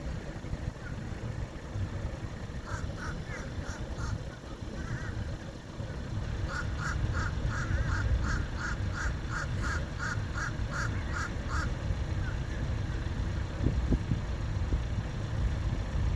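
A bird calling in rapid, evenly spaced short calls, about three a second: a short run of about five a few seconds in, then a longer run of about fourteen. A steady low rumble runs underneath.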